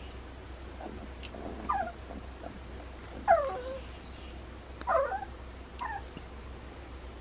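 Two-and-a-half-week-old puppy whimpering: four short cries, each falling in pitch, spread over a few seconds, the loudest about three seconds in.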